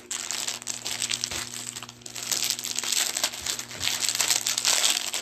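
Rustling and crinkling as a folded fabric flag is unfolded and shaken out by hand, busier from about two seconds in.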